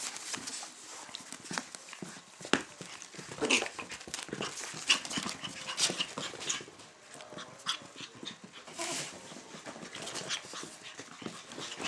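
Chinese crested puppies panting and scuffling on the floor, with many irregular small clicks and scratches.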